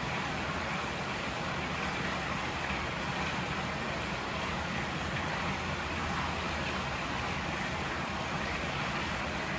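River water rushing steadily, an even, unbroken rush with no change in level.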